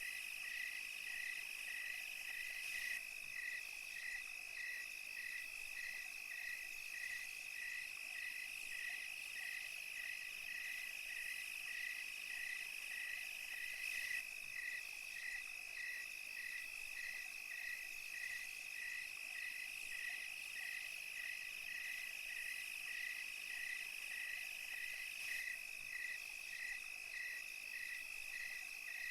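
Night chorus of crickets and other insects: a steady high trill with a regular chirp repeating about twice a second.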